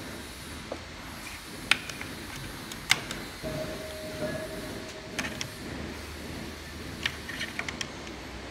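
White plastic cutter blades being set onto the stainless steel cutter plate of an encrusting machine: a few sharp knocks and clicks, the two loudest within the first three seconds and a cluster of light clicks near the end, over a steady low hum.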